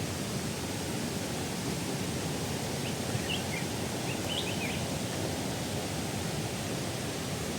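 Waterfall water rushing and splashing steadily, with a few brief high chirps about three to four and a half seconds in.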